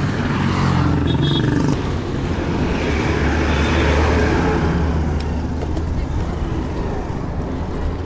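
Street traffic heard from a moving bicycle: the engines of a motorcycle and a truck running close by, a steady low rumble that is loudest about halfway through.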